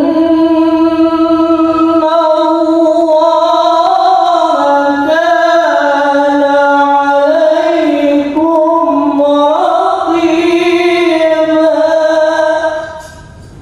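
A man's solo voice chanting into a microphone in long, ornamented held notes that step slowly up and down in pitch. It fades out near the end.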